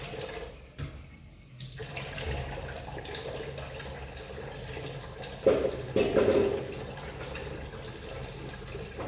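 Steady rush of running water, with a brief lull about a second in, and two sharp knocks about five and a half and six seconds in.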